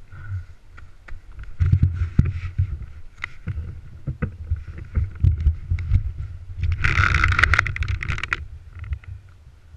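Thumps and rumble on a helmet-mounted camera's microphone, with snow crunching and scraping as people move and dig around a stuck snowmobile. A louder rushing scrape lasts about a second and a half, about seven seconds in.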